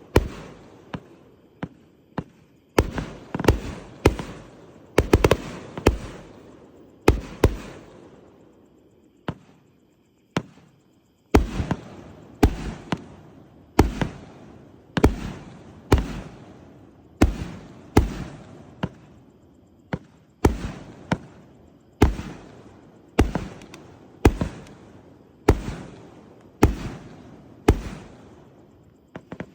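A 208-shot fireworks cake firing: sharp bangs of shells bursting, about one or two a second, each fading out in a rumbling tail. The shots pause for a few seconds about a third of the way in, then resume.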